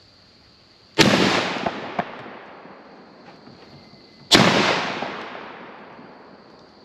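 Two shotgun shots about three seconds apart, each echoing and dying away over a couple of seconds. Two short clicks follow the first shot.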